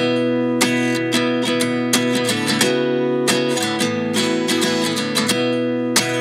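Background music: a strummed acoustic guitar with a steady rhythm of strokes.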